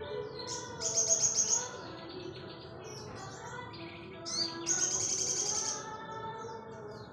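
Sogon songbird singing: many short high chirps, broken twice by loud, rapid, buzzy trills, a short one about a second in and a longer one from about four seconds in.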